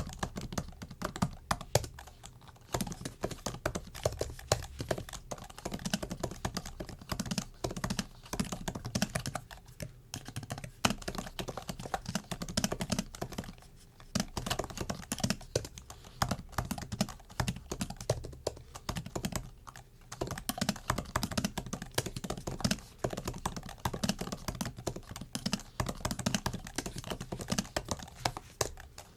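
Typing on a MacBook keyboard: fast, uneven clicking of the keys, with brief pauses now and then.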